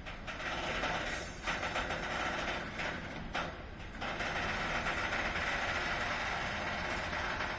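Container freight train passing: the steady rolling noise and rattle of loaded flat wagons' wheels on the rails, dipping briefly twice, about a second and a half and three and a half seconds in.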